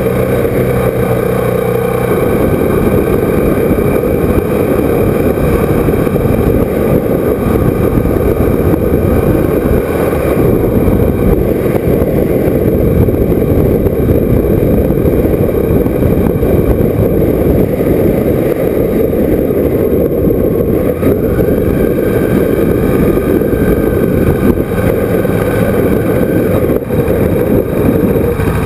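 Motorcycle engine running at road speed, steady and loud, under a heavy rush of wind over the microphone.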